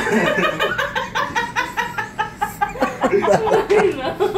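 People laughing hard in a fast, even run of ha-ha pulses.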